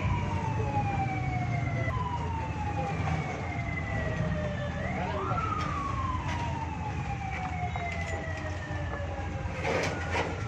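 A siren wailing, its pitch sliding slowly down and sweeping sharply back up about five seconds in, over a steady low hum. A few short knocks come near the end.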